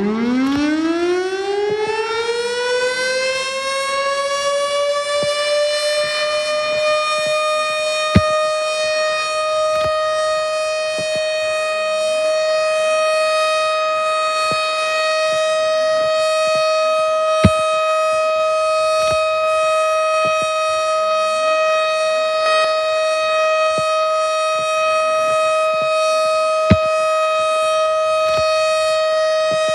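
Civil defense siren used as an emergency alert alarm. It winds up from a low pitch to a steady high tone over about six seconds, then holds that tone without wavering. Three sharp clicks come about nine seconds apart.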